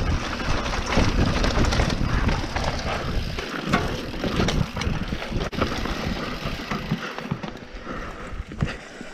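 YT Capra mountain bike descending a loose dirt trail: knobby tyres rolling over dirt and rocks, with frequent clattering knocks from the bike and rush of wind on the mic, growing quieter near the end.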